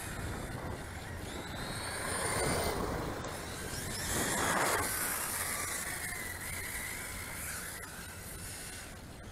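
Radio-controlled cars running on pavement, their motors whining up and down in pitch as they speed up and slow down. The sound swells twice, about two and a half and four and a half seconds in, over a low steady rumble.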